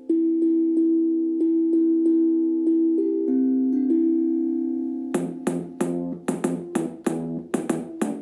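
Instrumental music on a plucked-string instrument: softly repeated ringing notes, then about five seconds in, bright strummed chords about three a second.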